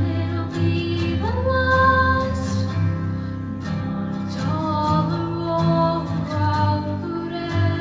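Young female solo singer singing a song into a microphone over instrumental accompaniment, her voice sliding up into held notes.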